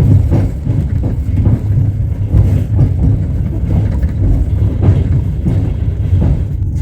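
Train wheels clattering over the rail joints, knocking again and again over a steady low rumble of the moving train.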